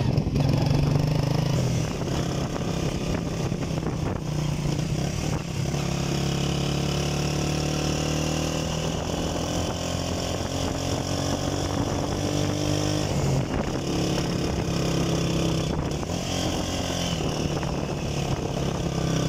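Motorcycle engine running steadily while riding, a low even engine note with a few small changes in pitch.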